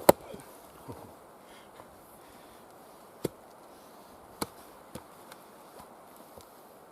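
Axe chopping into a log to split it: one hard strike just after the start, then several lighter knocks spread through the rest.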